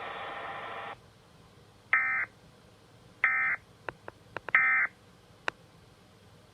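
Emergency Alert System end-of-message code: three short, loud, warbling digital data bursts about 1.3 s apart, following a steady hiss that cuts off about a second in. A few faint clicks fall between and after the last bursts.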